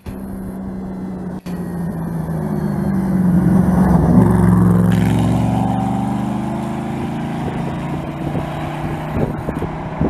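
Rally-raid car's engine approaching at speed, loudest as it passes about four to five seconds in, its note then dropping as it pulls away.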